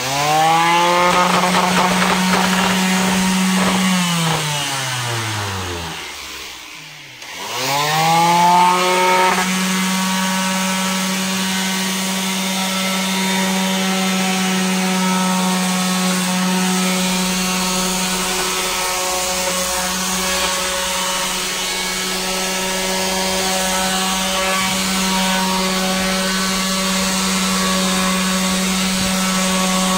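Ryobi electric sheet sander running against a wooden door frame. The motor spins up and runs steadily, winds down and stops about four seconds in, then starts up again a few seconds later and runs steadily on the wood.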